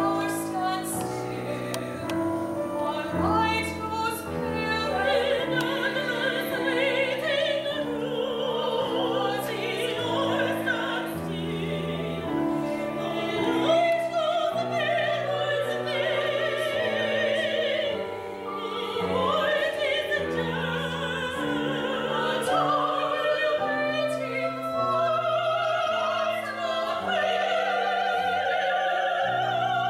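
Operatic singing, mainly women's voices, sometimes several at once, accompanied by piano chords.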